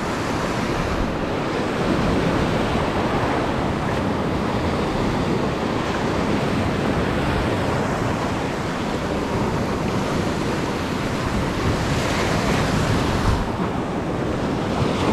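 Ocean surf breaking and washing in over the sand close by, a steady rushing wash that swells a little near the end, with wind buffeting the microphone.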